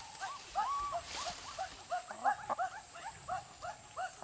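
White chicken calling: a rapid run of short, squeaky notes, about three or four a second, several overlapping at slightly different pitches.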